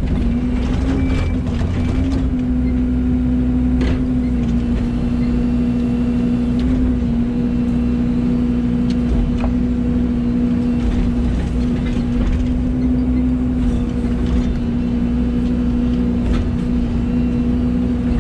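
Excavator diesel engine running steadily under load, with a constant hum and low rumble and a few faint knocks as the machine works.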